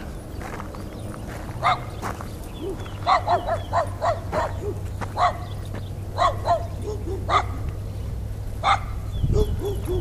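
A dog barking, about a dozen short barks in uneven groups with softer, lower yelps between them, over a steady low hum.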